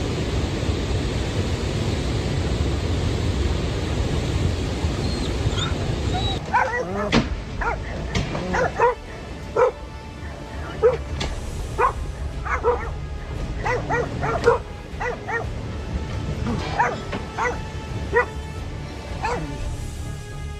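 Steady rushing noise for the first few seconds, then a dog yipping and barking again and again in short, high calls.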